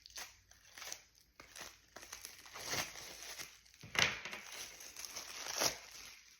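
Packaging crinkling and tearing in irregular bursts as a pack of cards is handled and unwrapped, loudest about four seconds in.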